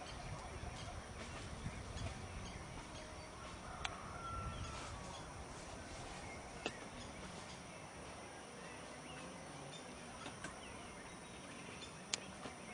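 Open-air hilltop ambience: a low wind rumble on the microphone, strongest in the first few seconds, with faint scattered bird calls and a few sharp clicks.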